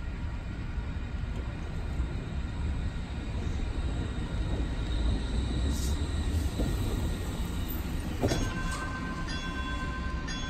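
Bombardier Flexity Freedom light rail vehicle running along the track toward the listener with a steady low rumble that grows louder as it nears. About eight seconds in there is a sharp clack, then a steady ringing tone and a short bell-like chime repeating about once a second.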